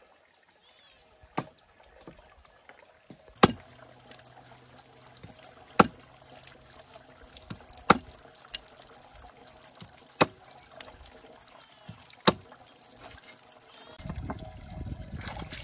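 A cleaver chopping stream snails on a wooden cutting board: about seven sharp knocks, roughly one every two seconds. Behind them, water trickles steadily from a clay jar's tap into a plastic basin.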